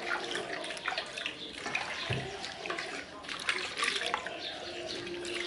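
Raw chicken pieces being rubbed and turned by gloved hands in a liquid marinade in a stainless steel bowl: wet squelching and sloshing with irregular small splashes and clicks.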